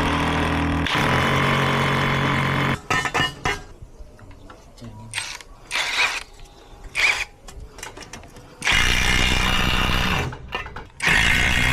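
Electric power drill running in bursts: one long run of about three seconds at the start, then short knocks and clicks, then two more runs, the last starting about a second before the end.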